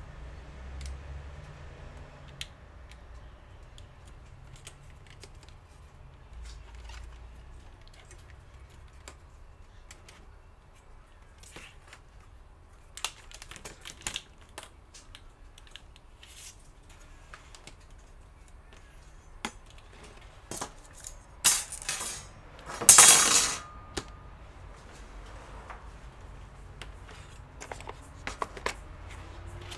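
Small clicks and taps of a laptop LCD panel's parts and tools being handled on a workbench. About two-thirds of the way through comes a louder scraping rustle lasting about two seconds.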